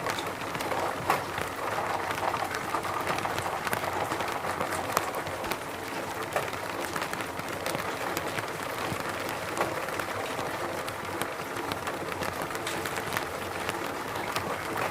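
Steady rain, an even hiss full of many separate drop hits heard as fine ticks.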